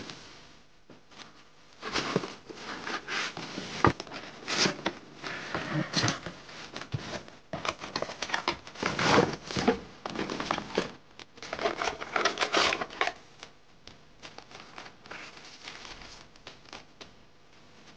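Cardboard toy box being opened and unpacked: irregular rustling, scraping and crinkling of cardboard and plastic packaging, dying down to quieter handling clicks after about 13 seconds.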